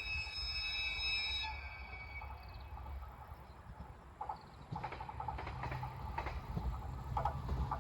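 E721-series electric train's high-pitched warning whistle, sounded for an ungated level crossing, cutting off about a second and a half in. From about four seconds in, the approaching train's low hum and wheel clacks grow louder.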